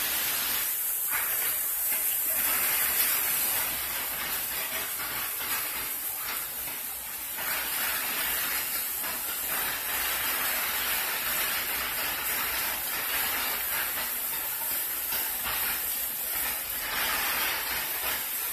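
Heavy hurricane rain pouring down, a dense steady hiss that swells and eases in level.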